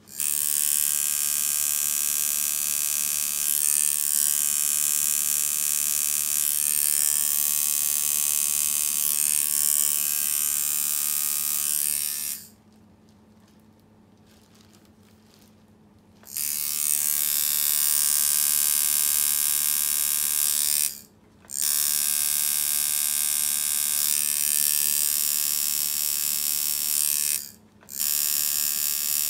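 The tattooist's own original tattoo machine buzzing steadily as it runs. It stops for about four seconds partway through, then buzzes again with two brief pauses near the end.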